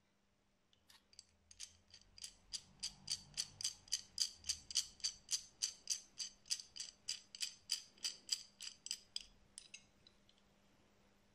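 Worm screw of an adjustable wrench being turned by thumb to close the jaw, giving a steady run of small metallic clicks about four a second that stops near the end.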